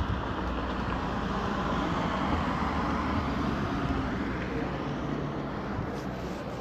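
A car driving past on a city street, its engine and tyre noise swelling in the middle and then fading, over steady traffic noise.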